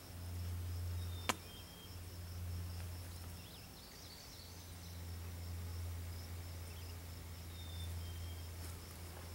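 Faint outdoor ambience: a steady, pulsing high insect buzz over a low hum, with one sharp click about a second in.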